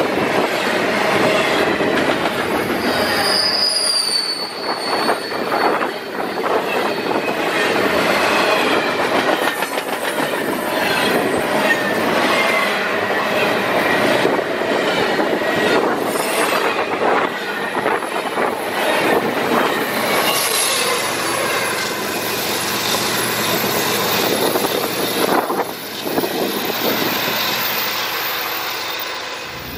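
Double-stack container freight cars rolling past at close range, steel wheels rumbling and clacking over the rail, with high-pitched wheel squeal that is strongest about three to five seconds in.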